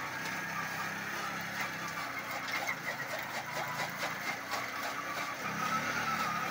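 Unique motorcycle's single-cylinder engine running steadily, powering a chaff cutter that is chopping green fodder, with repeated short clicks from the cutter over the engine hum.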